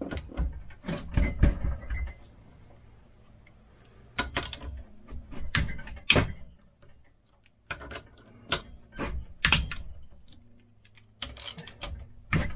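Metal hand tools and engine parts clinking and knocking in irregular sharp hits while a Ford 5.4L three-valve cylinder head is taken apart, over a faint steady low hum.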